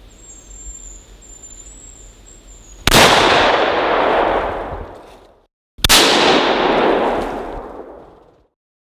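A faint, thin, high whistle over quiet background noise. About three seconds in, a loud sudden bang rings out with a long tail fading over two seconds, and a second bang follows about three seconds later, each cut off abruptly.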